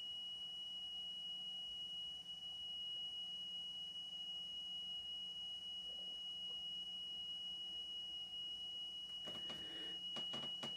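A single steady high test tone played from a speed-test cassette on an Aiwa AD-F410 cassette deck, listened to for wow, flutter and slow running after a belt replacement. Near the end come a few clicks and knocks, and the tone stops.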